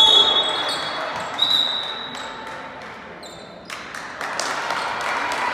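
Referee's whistle blown twice in a gym: a loud shrill blast lasting about a second, then a shorter one about a second and a half in, over the murmur of voices and court noise.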